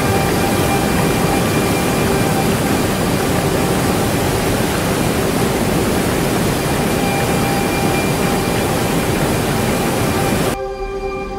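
A loud, steady rushing noise over sustained background music tones. The rushing cuts off abruptly near the end, leaving the music.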